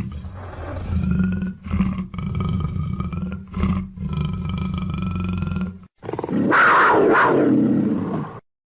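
Black panther (melanistic big cat) roaring, a run of calls with short breaks, then a louder roar in the last few seconds that cuts off suddenly.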